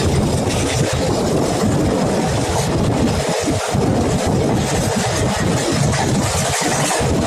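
Passenger train running along the track: a steady, loud rumble and rush of wheels on rails.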